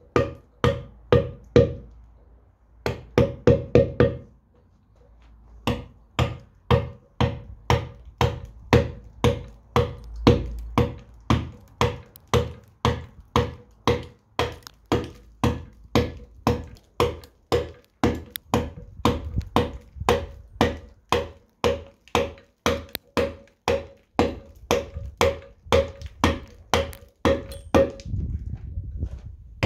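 Round mallet striking a chisel to cut letters into a stone block: a steady run of sharp knocks, about two a second, each with a short ring. There are two brief pauses in the first few seconds, then it keeps an even rhythm.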